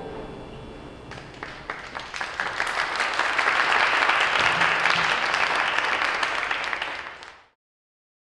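The last notes of the music ring away, then the audience applauds, starting with scattered claps about a second in and building to full applause, which is cut off suddenly near the end.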